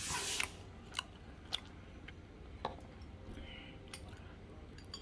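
Metal chopsticks picking through food in a plastic container: a few faint, sharp clicks and taps spaced about a second apart, after a brief soft hiss at the start.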